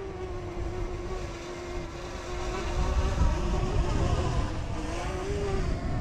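DJI Mini 2 drone's propellers whining steadily as it hovers low before landing, the pitch wavering briefly near the end as it corrects against the wind. Gusty wind rumbles on the microphone, swelling from about two seconds in.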